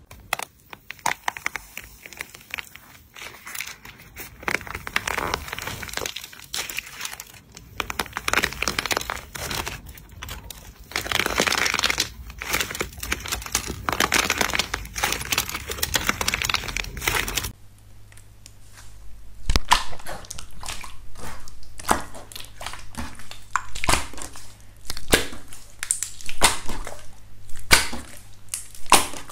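Hands crushing a hardened crust of blue slime into fragments, a dense run of crackling and crunching. About two-thirds of the way through it cuts to hands pressing a sheet of clear yellow glitter slime flat, which gives sharp separate clicks and pops.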